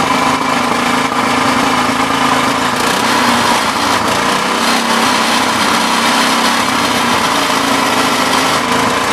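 Small GK100 petrol-kerosene engine running steadily at an even, unchanging speed.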